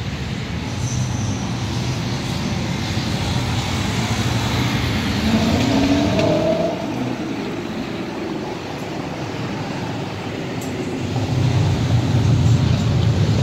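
Road traffic: a line of cars passing at low speed, engines and tyres running steadily. About five seconds in one engine accelerates, rising in pitch, and a louder, deeper engine sound builds near the end.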